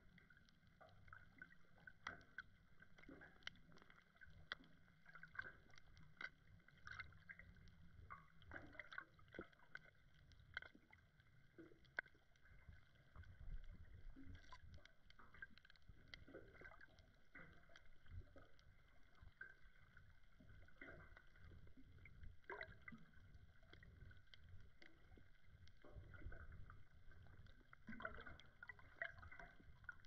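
Faint underwater ambience in shallow sea water: a low, muffled rumble of moving water with many small irregular clicks and crackles scattered throughout.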